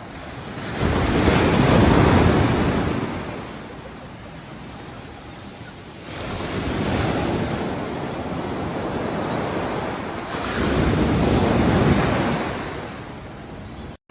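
Ocean waves breaking and washing in, three surges swelling and ebbing about four to five seconds apart.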